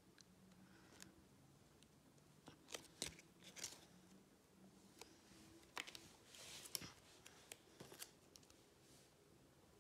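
Faint rustling and small crackles of a paper sticker's backing being picked at and peeled apart by fingers, in scattered short bursts.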